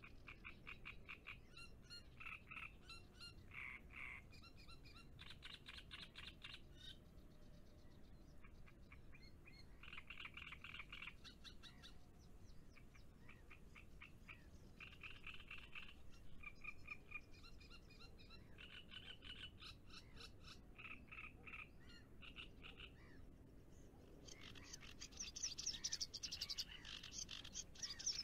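Frogs calling in faint, rapid pulsed trills that come in repeated bouts of about a second each, with higher-pitched calls joining near the end.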